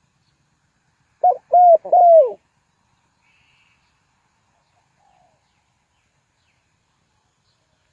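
Spotted dove cooing: one three-note phrase about a second in, a short note followed by two longer ones, each rising and then falling.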